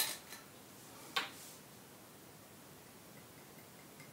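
A click as the screw cap comes off a glass bottle, then a sharp tap about a second in as the cap is set down on the table. After that only faint room tone, with a faint trickle of liquid poured into a small glass near the end.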